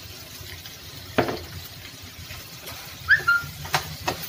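Wooden spatula knocking and scraping against a non-stick frying pan as stirring begins: one knock about a second in, then a short squeak and a few quick knocks near the end.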